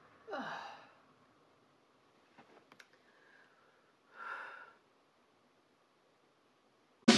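A woman's voiced, exasperated sigh, falling in pitch. A few faint clicks and a second short vocal sound follow, then music starts abruptly at the very end.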